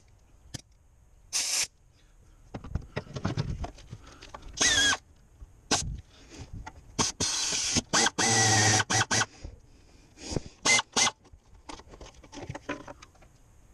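Mini air ratchet run in a string of short bursts, air hissing with a motor whine, while loosening bolts deep in an engine bay. The longest bursts come about halfway through, with small clicks and rattles of the tool between them.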